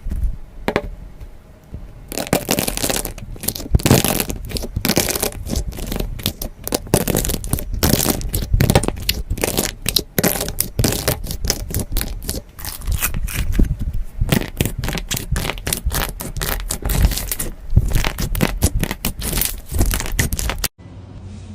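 Slime being squeezed and stretched by hand: a dense, irregular run of crackles, clicks and small pops. It cuts off suddenly near the end.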